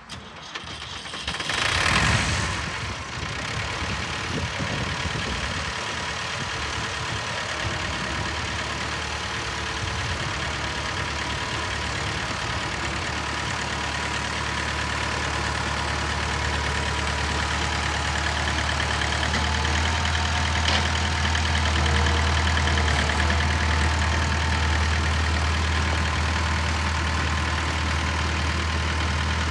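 Massey Ferguson 165 tractor engine idling steadily, with a brief louder rush of sound about two seconds in.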